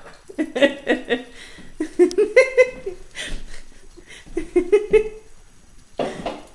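Human laughter: several short bursts of giggling, each a quick run of rapid repeated 'ha' pulses.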